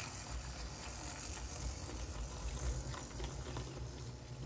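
Scratch-built HO-scale diesel model locomotive running along the track, its small electric motor and gear tower giving a steady mechanical whir that dies away at the end.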